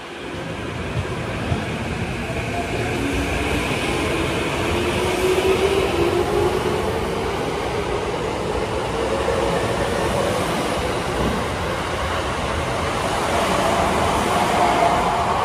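Tokyo Metro 15000 series electric train pulling out of a station and accelerating past, its traction motor whine rising in pitch as it gathers speed, over the rumble of wheels on rails.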